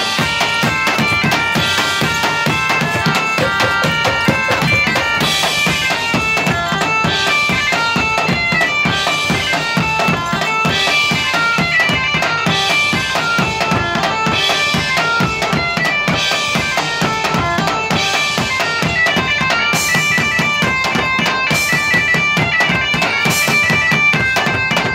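Live medieval-style folk music: bagpipes play a melody over a steady beat from a large bass drum and a drum kit.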